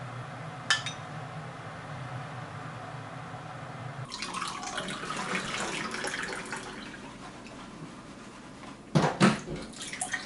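Kitchen sounds: a steady low hum with a single click under a second in, then a stretch of crackling noise about four seconds in, and several sharp clatters of dishes or utensils being set down near the end.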